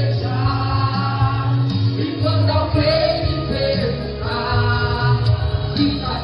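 Gospel worship song: voices singing long held notes over a band with a steady bass line.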